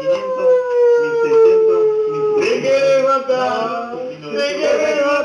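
A long howl, held for about two and a half seconds and slowly falling in pitch, then a second, slightly higher held note with other sounds mixed under it.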